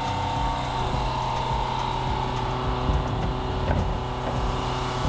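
Portable-toilet service truck's engine and vacuum pump running steadily, with a constant whine over a low drone.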